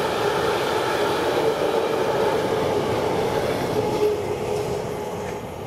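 Freight train's container wagons rolling past on the rails: a steady running noise with a held tone. It fades away near the end as the last wagon goes by.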